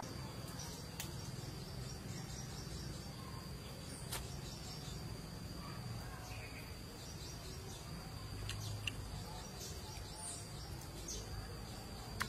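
Outdoor ambience of faint, scattered bird chirps over a steady low rumble, with a few short clicks and smacks from someone eating roast chicken with her fingers.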